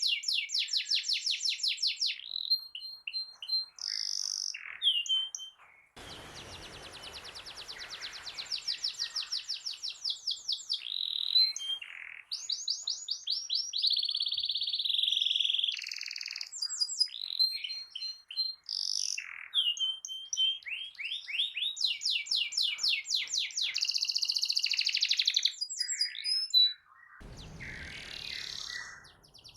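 Domestic canary in full song: long, fast trills and rolls of rapidly repeated notes, broken by held whistled tones, with hardly a pause.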